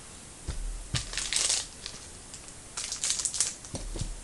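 Trading-card pack wrappers crinkling as packs are opened and handled, in two bursts about a second in and around three seconds, with a few soft bumps.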